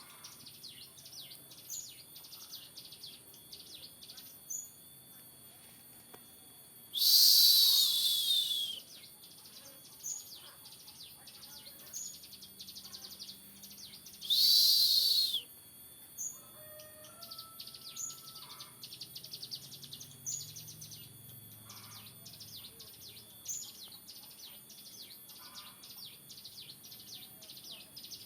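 A two-month-old cigun songbird chattering in fast runs of high chirps. Twice, about seven and fourteen seconds in, it gives a loud harsh call falling in pitch, each lasting over a second.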